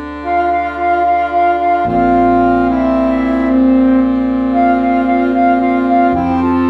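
A small wind band (flute, clarinet, alto saxophone, trumpet and trombone) playing. Flute and clarinet carry a repeated-note melody over long held trombone notes. The bass note changes about two seconds in and again near the end.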